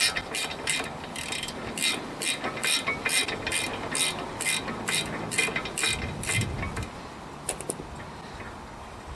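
Socket ratchet wrench clicking in an even run of about three clicks a second while undoing a front brake caliper carrier bolt; the clicking stops about six and a half seconds in.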